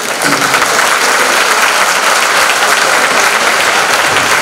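Audience applauding: many hands clapping in a dense, steady clatter that starts as the thanks end and holds throughout.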